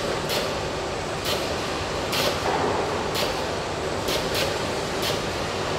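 Factory floor ambience of a robotic car body assembly line: a steady machinery hum, with short hisses about once a second.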